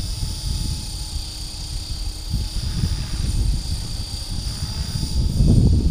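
Align T-Rex 450 XL electric RC helicopter hovering, its motor and rotor giving a steady high whine. Heavy wind buffeting on the microphone rumbles underneath and grows louder near the end.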